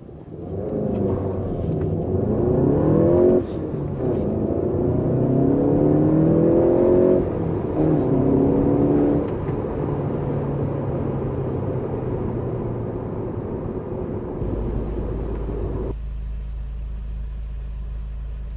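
Golf GTI's 2.0-litre turbocharged four-cylinder engine accelerating hard through the gears: three rising pulls in engine pitch, each of the first two cut off by an upshift. After the third pull the engine settles to a steady drone, dropping to a lower, even tone near the end.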